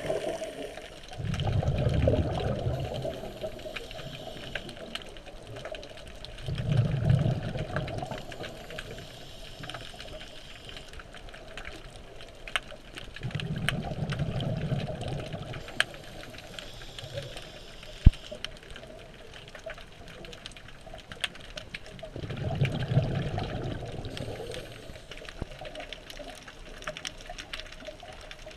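Scuba diver's exhaled bubbles from the regulator, heard underwater as four bursts of low bubbling several seconds apart, over a steady crackle of fine clicks. There is one sharp knock a little past the middle.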